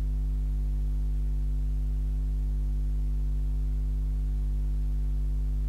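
Steady electrical mains hum at about 50 Hz with a row of evenly spaced overtones, unchanging throughout.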